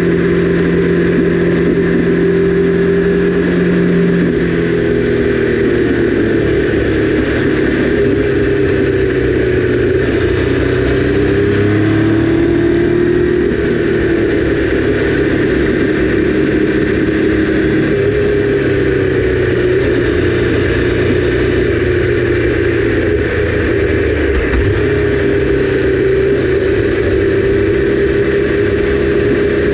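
Triumph Daytona 955i's inline three-cylinder engine running at cruising speed, its pitch dipping and rising a few times as the throttle is rolled off and on, over steady wind rush.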